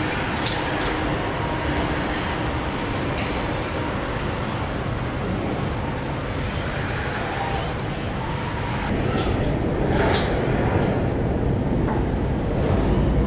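Car body-shop assembly line running: a steady rumble and hiss of industrial robots, conveyors and plant machinery, with a faint high whine. A brief sharp clank or hiss comes about ten seconds in.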